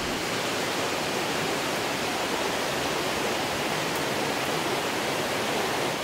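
Triple waterfall plunging down a cliff face: a steady, even rushing of falling water.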